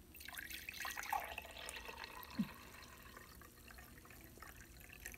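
Water poured in a thin stream into a dimpled glass beer mug, a faint steady splashing as the mug fills, with one short low glug about halfway through.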